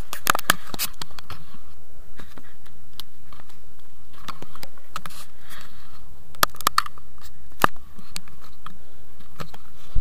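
Handling noise on a chest-mounted action camera: jacket fabric and harness rubbing and scraping against the camera housing, with scattered sharp clicks and knocks.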